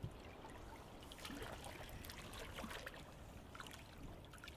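Faint splashing and lapping of sea water around a swimmer holding onto the side of a trimaran hull, with small scattered drips and splashes.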